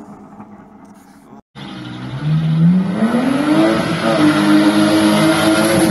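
BMW E36 Compact's M50 straight-six engine accelerating hard: after a short break, the revs climb steadily for about a second and a half and are then held high. A quieter engine runs before the break.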